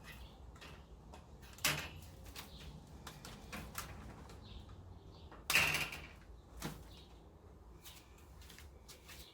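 Scattered knocks and scrapes of objects being handled, with two louder ones near 2 s and about 5.5 s in; the second, the loudest, lasts about half a second.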